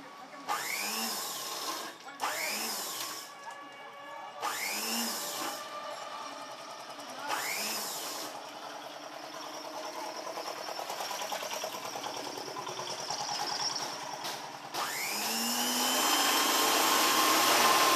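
Motor-driven sewing machine stitching mosquito netting in several short runs, each starting with a rising whine as the motor speeds up. A longer, louder run comes near the end.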